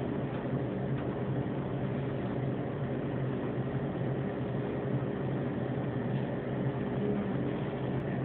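A steady machine hum with a low drone, unchanging throughout.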